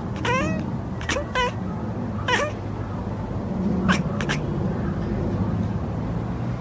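A grey tabby cat making short, chirpy meows, four of them in the first two and a half seconds, each a quick rise and fall in pitch. A few sharp clicks follow about four seconds in, over a steady low hum.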